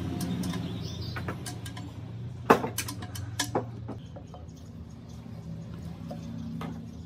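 Small clicks and taps of tools and metal parts being handled, with one sharp knock about two and a half seconds in and a couple more about a second later, over a low steady hum.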